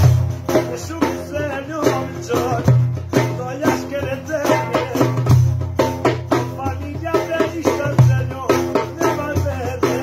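A man singing while playing a large frame drum with metal jingles: the drum keeps a steady rhythm of deep strokes, with the jingles rattling under the voice.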